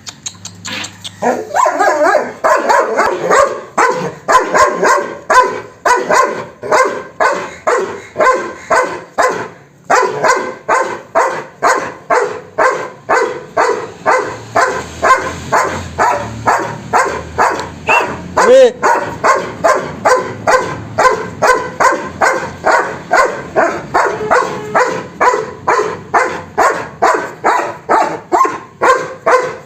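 A dog barking over and over in a steady run, about two to three barks a second, with a brief break about ten seconds in.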